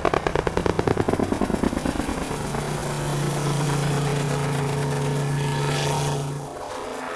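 Crop-dusting helicopter passing low: a rapid, even rotor beat for about the first two seconds gives way to a steady engine drone, which fades near the end.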